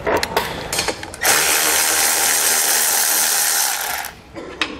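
Cordless electric ratchet backing out a bolt: a few clicks as the socket is fitted, then the motor runs steadily for about two and a half seconds and winds down.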